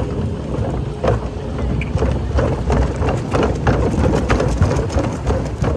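Boat under way on choppy water: wind buffeting the microphone over a low rumble, with a run of irregular splashes and slaps of water from about a second in.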